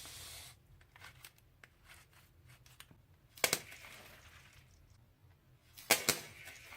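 Crunchy slime being handled and squeezed: a short hiss at the start, faint clicks, then two sharp crunches with crackling tails, about three and a half and six seconds in.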